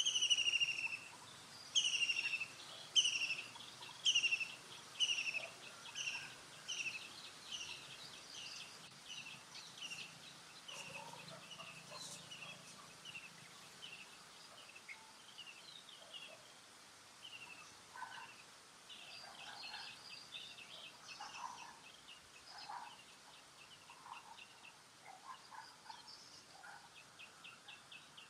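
A series of short, high-pitched, falling calls, loud at first at about one a second, then coming quicker and fainter, with scattered softer chirps after.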